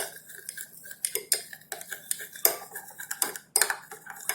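A spoon stirring a mixture of honey and ginger juice in a small bowl, clinking and tapping irregularly against the sides, several times a second.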